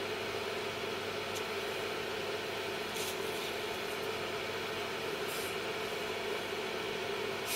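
Small soldering fume-extractor fan running steadily with an even whirring hiss, with a few faint short hisses from the work about a second, three seconds and five seconds in.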